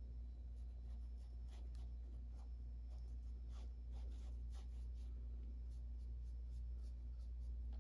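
Paintbrush stroking acrylic paint on a textured canvas: soft, irregular scratchy brush strokes, several a second, over a steady low hum.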